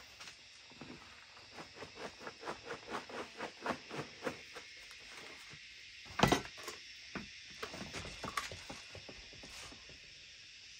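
A quick, even run of light taps, about five a second for some three seconds, then one loud knock and a few scattered taps.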